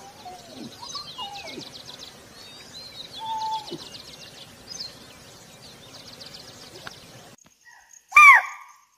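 Faint bird trills and a few soft gliding calls over light background hiss. Then, near the end, one loud, short call from a spotted deer (chital).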